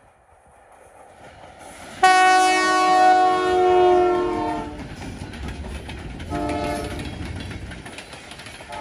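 Canadian Pacific diesel locomotive's air horn sounding a chord: one long blast starting about two seconds in, then a short blast about six seconds in. Under it the locomotive rumbles louder as it comes by, followed by the steady clicking of freight-car wheels on the rails.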